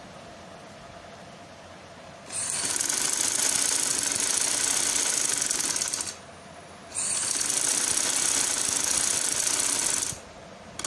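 Sewing machine running fast as it stitches down a pleat in trouser fabric, in two runs of about four and three seconds with a short stop between them.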